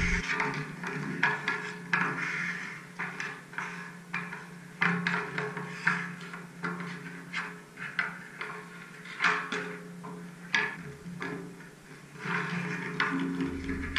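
Ice hockey sticks striking pucks on outdoor ice: a series of sharp, irregularly spaced cracks and clacks. Background music plays underneath.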